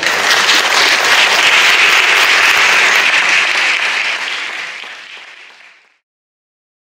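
Audience applauding, a dense steady clapping that starts abruptly and fades away about five seconds in.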